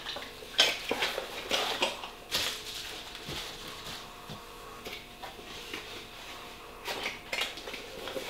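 Scattered small knocks, taps and rustles of a gift box and its packaging being handled as a candle holder is packed back into it.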